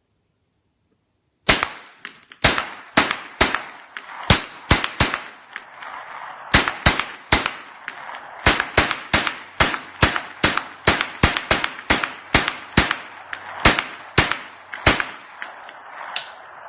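Rapid semi-automatic gunfire: about thirty shots in quick, uneven strings of two or three a second, each with a short echoing tail. The firing stops with a round that the instructor thinks was a dud.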